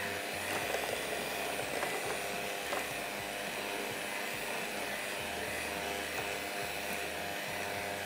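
Electric hand beater running steadily, its small motor giving an even hum, with a couple of faint ticks.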